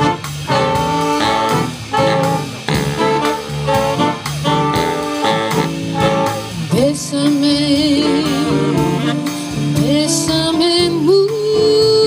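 Jazz-style instrumental introduction to a bolero: evenly repeated chords, then about halfway through a long, held melody line with vibrato slides in over the accompaniment.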